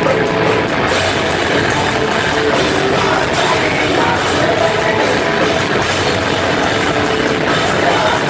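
Loud heavy rock music with a dense, steady mix.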